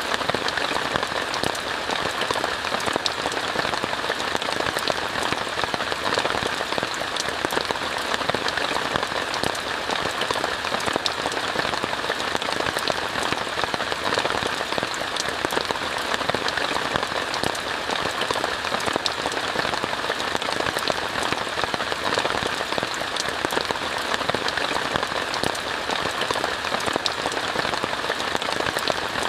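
Steady rain falling on a tent, heard from inside it: a constant hiss with many individual drops tapping on the fabric.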